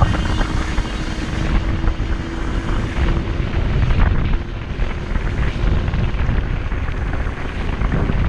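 Wind rumbling over the microphone of a moving e-bike climbing on throttle. A faint steady hum from the Engwe Engine Pro's 48 V rear hub motor, drawing about 999 watts, runs underneath and fades about halfway through.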